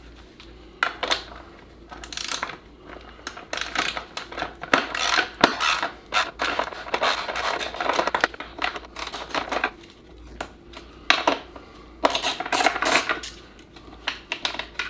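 Irregular metallic clinking and clattering of hand tools against the bike as one side of a cracked Husqvarna dirt bike subframe is pried loose.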